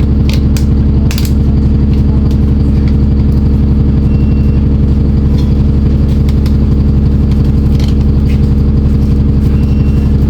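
ADL Enviro 400 double-decker bus's diesel engine running at a steady speed, with scattered short rattles and clicks and two brief high beeps.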